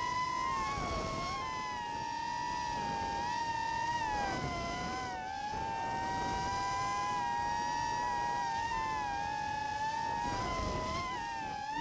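Racing quadcopter's Cobra 2204 2300kv brushless motors whining steadily, several close pitches together, dipping briefly as the throttle eases about a second in and again near the end, with wind rush over the onboard camera.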